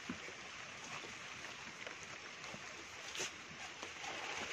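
Steady hiss of heavy rain on foliage, with scattered small ticks and close rustles of leaves and footsteps moving through wet vegetation.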